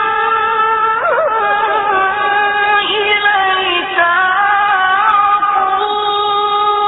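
Qur'anic recitation by a male reciter: one long, high, unbroken note sung on a single breath, with ornamented pitch turns about a second in and again around three to four seconds in, where the line dips before settling back.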